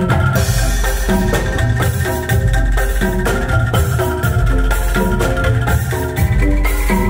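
Bamboo percussion ensemble playing a tune: quick runs of short, pitched bamboo notes over a steady pulsing bass, with drum kit and cymbal hits keeping the beat.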